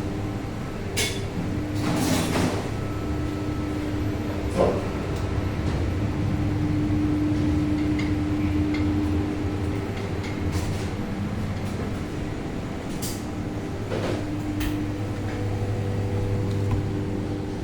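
Working kitchen: a steady low hum of equipment with a few scattered clinks and knocks.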